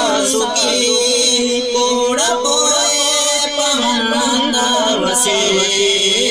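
Male voices singing a naat, an Islamic devotional song, in a melody of long held notes that glide up and down.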